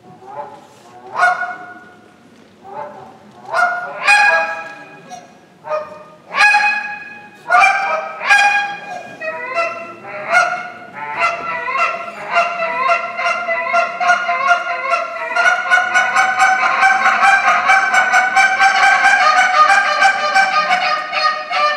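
A goose call blown by hand, imitating Canada geese. It starts with single honks spaced out, then picks up into a fast, unbroken run of clucks and honks, many per second, through the second half.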